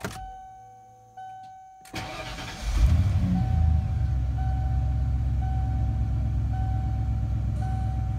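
Ignition click and a repeating dash warning chime, then the 1996 Ford F-150's 5.0-litre (302) V8 cranks on the starter for about a second, catches near the three-second mark and settles into a steady idle while the chime keeps dinging about once a second. This is the first start after an oil change, with the oil pressure still coming up.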